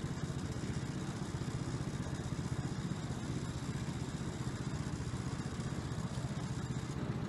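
Small petrol engine of a miniature railway petrol-mechanical shunter running steadily as the loco travels along the track, heard from its cab as an even, rapid low chugging.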